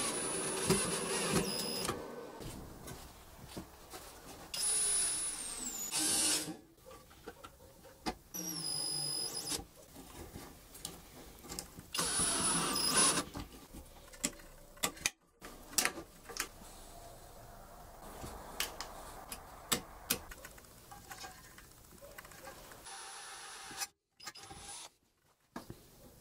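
Electric drill run in four short bursts at a steel bracket on chipboard, its motor whine rising and falling as it speeds up and slows. This is followed by sharp clicks and snaps as plastic socket and switch housings are handled and fitted together.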